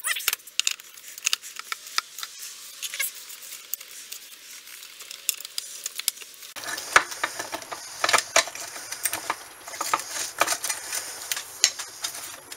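Steel gears and an axle shaft of a Peerless MST transaxle clicking and clinking against each other and the aluminium case as they are fitted by hand, in scattered sharp metallic clicks. A denser rustling joins about halfway through.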